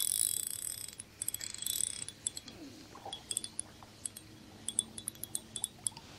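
Line hissing off a fishing reel as a cast finishes, then scattered light, high metallic ticks and clinks from the reel and tackle as the line is worked.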